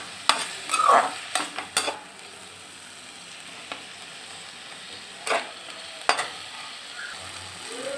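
A perforated metal spoon scraping and stirring sliced onion, tomato, garlic and green chillies as they fry in a metal kadhai, over a steady low sizzle. Several scrapes come in the first two seconds, then the sizzle carries on alone apart from two more scrapes later.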